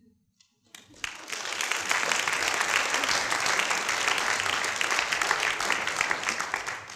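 Audience applauding, starting about a second in and fading out near the end.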